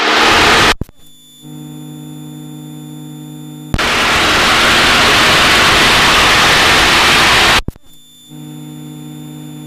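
Cockpit intercom audio switching abruptly between a loud, even open-microphone hiss and a quieter, steady electrical hum with a few fixed tones. It starts on hiss, drops to hum about a second in, jumps back to loud hiss for about four seconds from near the four-second mark, then falls back to hum near the end.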